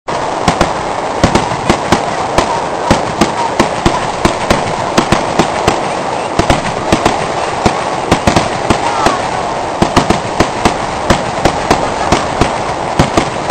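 Fireworks display: a dense, unbroken run of sharp bangs and crackles from bursting aerial fireworks, several a second.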